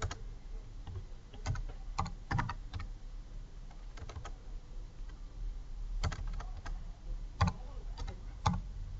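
Computer keyboard being typed on: short clicks in small irregular bursts with pauses between, as a few words are typed, backspaced and retyped.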